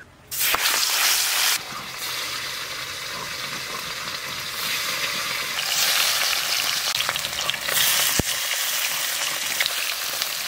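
Pieces of snakehead fish sizzling as they shallow-fry in hot oil in an aluminium wok. The sizzle starts suddenly about half a second in, is loudest for the first second or so, then settles into a steady sizzle, with one sharp click near the end.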